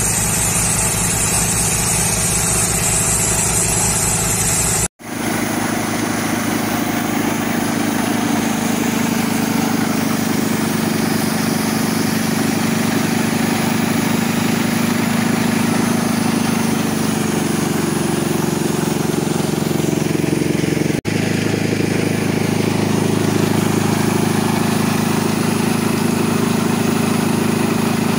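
Mahindra 475 DI tractor's four-cylinder diesel engine running steadily, driving a trailer-mounted, belt-driven air compressor. A loud hiss lies over it for the first five seconds, then stops at a cut.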